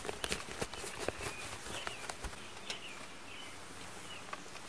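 Outdoor rural ambience: a few short bird chirps over a steady hiss, with scattered light clicks and rustles.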